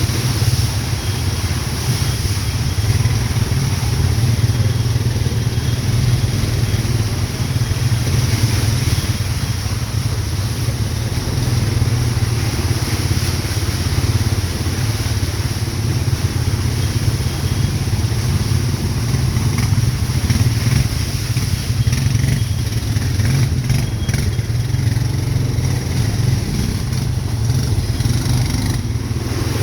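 ATV engine running steadily while riding, a loud continuous rumble with no letting up.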